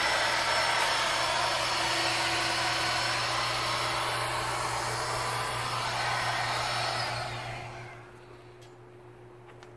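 Electric air pump blowing into an inflatable vinyl pool float, a steady whirring rush with a constant whine. About seven seconds in it shuts off and winds down with a falling pitch, followed by a few faint clicks.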